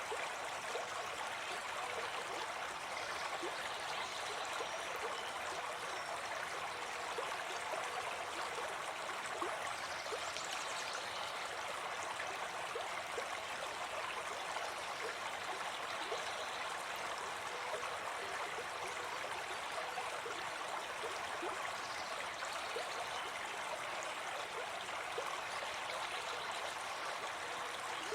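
Forest stream running steadily over rocks, a continuous even rush of water with small gurgles and splashes.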